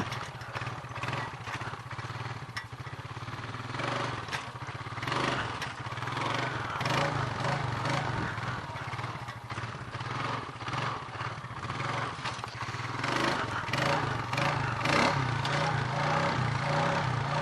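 Honda ATV engine running as the four-wheeler is ridden, its throttle swelling and easing, with many knocks and rattles from the machine over the ground. The engine note rises a little toward the end.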